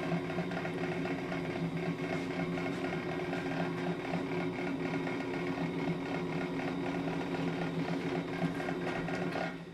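Ammco brake lathe running with a brake rotor spinning on its arbor: a steady motor hum with a faint regular pulse. Near the end the lathe is switched off and the sound dies away.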